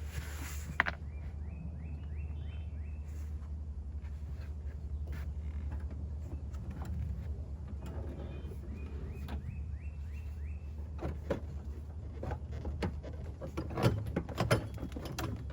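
A ratcheting hand tool backing out bumper screws, clicking in two short runs of rapid even clicks, over a steady low hum. Sharp knocks and clatter of parts being handled come near the end.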